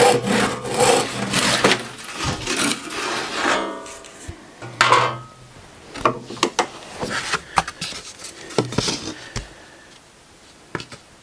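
Hand saw ripping along the grain of a pine board, slicing off a thin veneer in quick rasping strokes. The strokes stop about three and a half seconds in, followed by scattered knocks and a couple of brief rasps as the board is handled and the veneer comes free.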